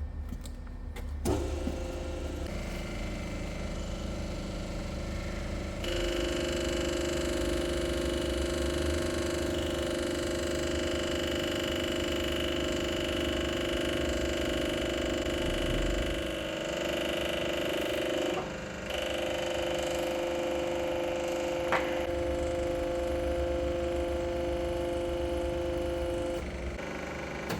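Hydraulic press running as a hex bar is pressed into a steel plate: a steady pump whine starts about six seconds in, dips briefly, and stops shortly before the end, with one sharp click a few seconds before it stops.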